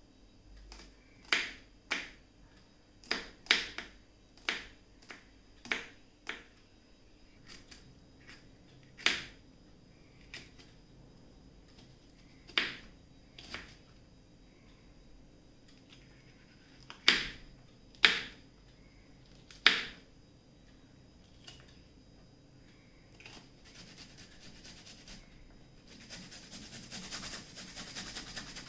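Kitchen knife chopping on a wooden cutting board, sharp irregular knocks as garlic cloves and then green capsicum are cut, a few very loud strokes in the middle. Near the end a fast, continuous scraping sets in as a peeler takes the skin off fresh ginger.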